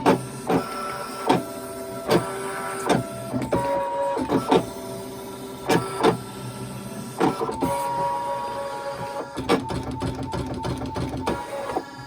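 Brother ScanNCut electronic cutting machine cutting cardstock: its stepper motors whir in steady tones that change pitch as the blade carriage moves, broken by frequent sharp clicks where it stops and changes direction.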